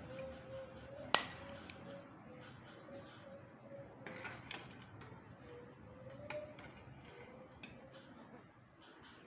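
A serving ladle clinks faintly against the pot and plate as the curry is dished out, with one sharp, ringing clink about a second in and smaller clicks after. A faint wavering tone runs underneath.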